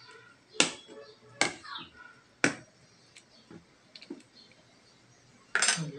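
Metal ladle clinking against the side of a metal cooking pot while stirring vegetable soup: three sharp clinks about a second apart, then a louder, longer clatter near the end.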